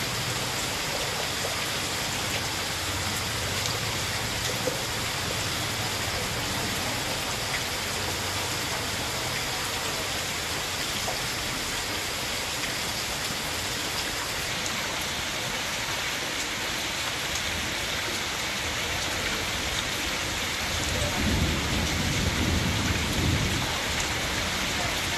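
Heavy rain falling steadily onto a flooded street, a dense even hiss. Near the end a low rumble swells for a couple of seconds.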